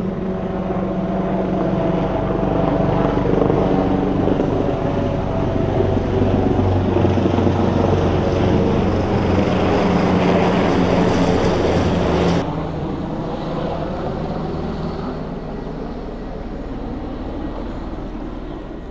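A loud, steady engine drone that drops suddenly in level about twelve seconds in.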